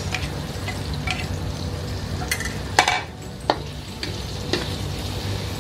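Garlic, shallots, onion and sliced red chilies sizzling in oil in a metal wok as a metal spatula stirs and scrapes them, with a few sharp clinks of the spatula on the pan, the loudest about three seconds in. The aromatics are being fried until fragrant.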